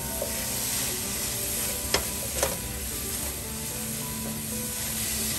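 Sliced mushrooms and spring onions sizzling in a nonstick frying pan as butter is stirred in with a silicone spatula. A couple of light knocks from the spatula on the pan come about two seconds in.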